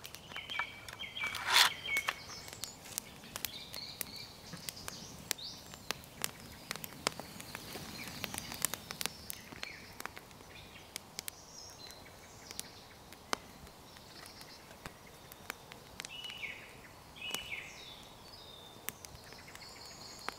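Woodland ambience: frequent sharp crackles and snaps from a small wood campfire and twigs underfoot, with short bird chirps near the start and again near the end. One louder snap comes about a second and a half in.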